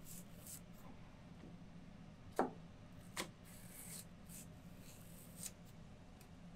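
Chef's knife slicing large green onions on a plastic cutting board: soft swishes of the blade through the stalks and two knocks of the knife on the board, a sharper one about two and a half seconds in and a lighter one just after.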